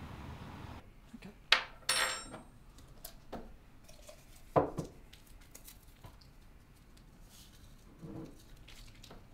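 Teaspoon, mugs and sugar jar clinking and knocking on a desk as coffee with sugar is made: a series of separate clinks, the loudest about one and a half and two seconds in, the second with a short ring, and another sharp knock near the middle.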